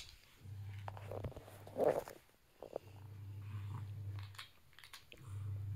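Plastic toy building blocks clicking and clattering as they are handled and pressed together, over a low hum that comes and goes every second or two, with one louder clatter about two seconds in.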